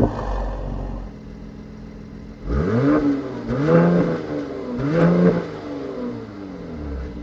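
Mercedes-AMG C43's 3.0-litre twin-turbo V6 through its Performance exhaust: a rev dropping away ends in a sharp crack, the engine settles to idle, then it is blipped three times about a second apart, each rev rising and falling, before it drops back to idle.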